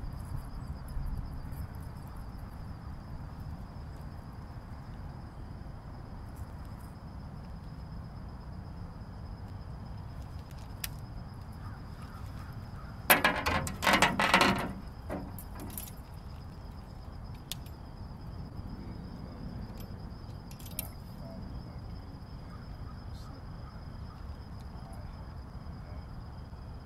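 A jangling clatter of small hard objects lasting about two seconds around the middle, over steady low background noise with a faint, thin, steady high whine and a few scattered clicks.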